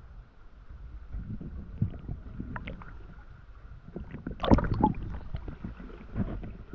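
Irregular splashing and knocking in water over a low rumble, loudest in a cluster of strokes about four and a half seconds in.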